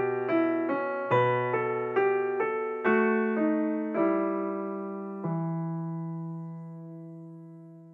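Background piano music: single notes struck at an even pace, the last few further apart, ending on a low note that rings on and fades away toward the end.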